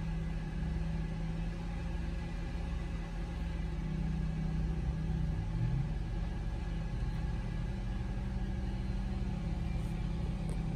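A motor running with a steady low hum and rumble, heard from inside a car; its pitch rises briefly about halfway through.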